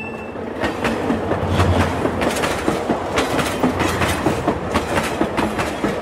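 Train rolling past, its wheels clattering rhythmically over the rails with a low rumble underneath.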